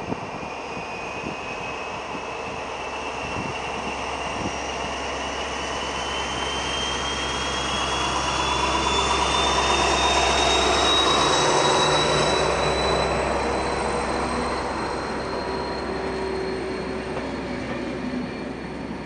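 SNCF BB 67400 diesel locomotive hauling Corail coaches along a station platform. Its low engine drone is loudest as the locomotive goes by about ten seconds in, then gives way to the running noise of the coaches. A high whine rises steadily in pitch throughout.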